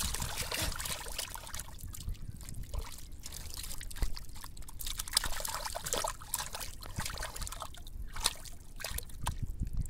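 Hands squelching and sloshing through thick wet mud and shallow muddy water while grabbing a catfish, a busy run of wet sucks and splashes with a couple of sharper slaps about four and five seconds in.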